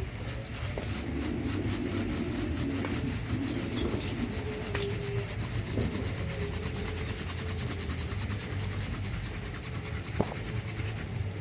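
Wooden hand-drill spindle spun back and forth between the palms against a wooden hearth board, making steady dry wood-on-wood rubbing: friction fire-making.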